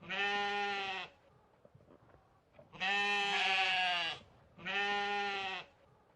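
Sheep bleating: three calls of about a second each, with short pauses between them.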